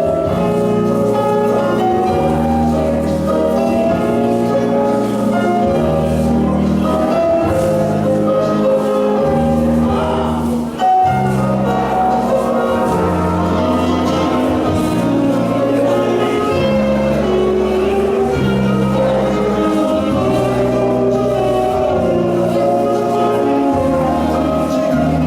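Ballroom dance music playing with a steady, evenly repeating beat under a sustained melody.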